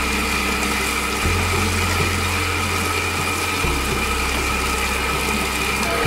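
Electric table-top wet grinder running steadily, its stone rollers grinding soaked idli rice and flattened rice into a coarse, semolina-like batter. A steady motor hum with a constant high whine.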